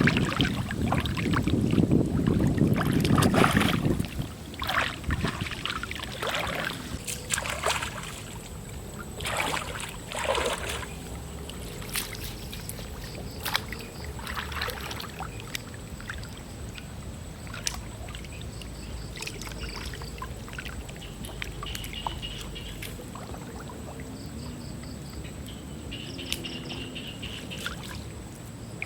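Water splashing and sloshing in short bursts as someone works in shallow lake water catching fish, with wind rumbling on the microphone for the first few seconds. Faint high chirps come in near the end.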